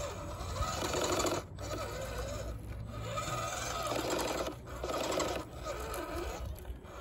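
Small electric motor of an RC scale crawler, a WPL 370 driving a two-speed gearbox, whining in spurts as the throttle is worked. The pitch rises and falls with motor speed, with short breaks between pushes. The gearbox is one the owner says has major issues.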